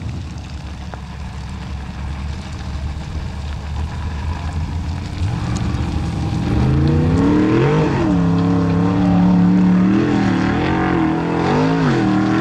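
Formula Offroad car's engine revving hard on a steep sand hill climb: a low rumble at first, then much louder from about halfway, its pitch rising and falling again and again as the throttle is worked.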